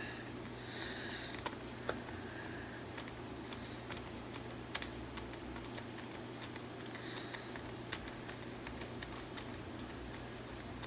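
Irregular light clicks and ticks of a small screwdriver turning a set screw out of a 3D-printed plastic prosthetic hand, over a steady low hum.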